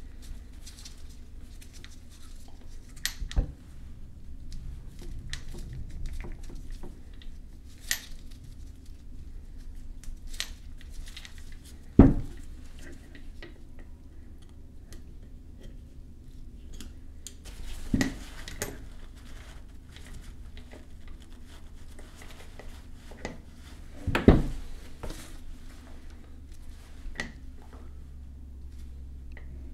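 Aluminium vacuum pump and a metal pick being handled on a workbench during reassembly: scattered light clicks and small rubbing noises, with four louder knocks spaced several seconds apart. A steady low hum runs underneath.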